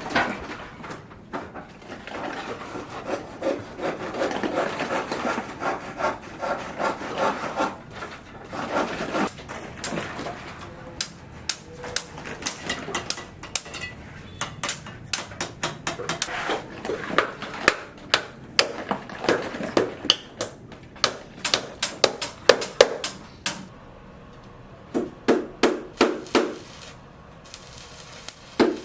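Hand work on wood at a building site: about ten seconds of rasping, rubbing strokes like sawing, then hammer blows on wood in quick runs of several strikes.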